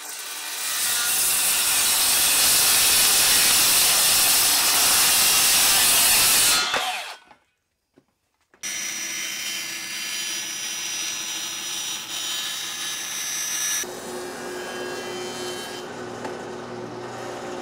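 Circular saw cutting through a plywood panel for about six and a half seconds, then stopping abruptly. After a short silence, a quieter, steady machine sound follows from a jointer running as a board is edge-jointed.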